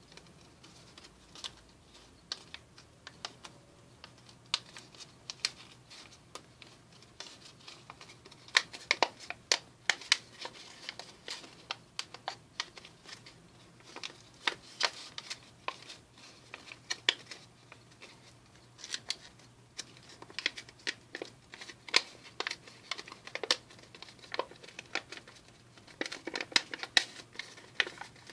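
Paper crinkling and crackling as hands fold and open out an origami canoe: irregular sharp crackles in uneven flurries, busiest from about eight seconds in and again near the end.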